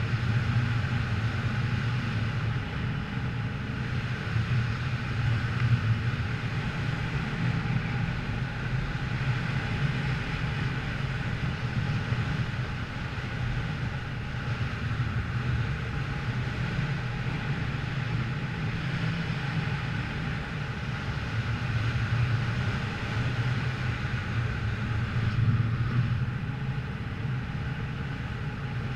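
A vehicle engine running steadily, with a constant low rumble.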